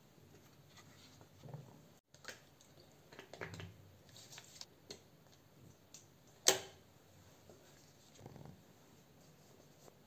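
Quiet handling of small bathroom toiletries: scattered soft plastic clicks and rustles, with one sharp click about six and a half seconds in, the loudest sound.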